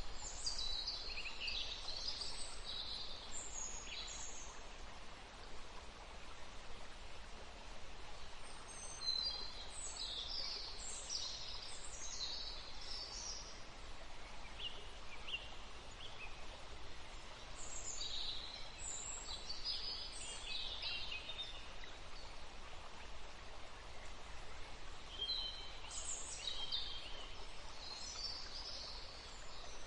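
A river flowing steadily, with songbirds singing in short bouts of quick, high phrases four times over.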